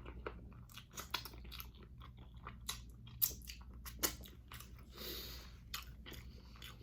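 A person chewing and biting into spicy chicken wings: irregular wet smacks and clicks of the mouth, with a short breathy hiss about five seconds in.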